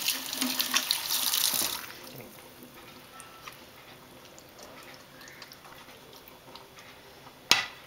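Water from a kitchen faucet running into a stainless-steel sink for about the first two seconds, then shut off. A few faint clicks follow, and a single sharp tap near the end is the loudest moment.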